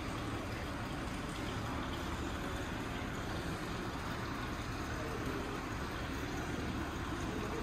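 Steady ambience of a large indoor hall: an even hum and hiss with faint, indistinct voices in the background.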